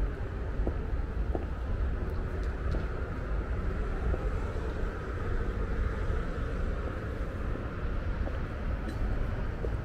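Steady low rumble of urban station ambience, with a hazy background hum and a few faint light ticks.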